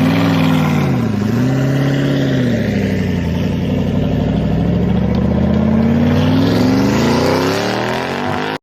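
A car engine running, its pitch dipping briefly about a second in, then rising steadily through the second half as it accelerates. It cuts off suddenly at the end.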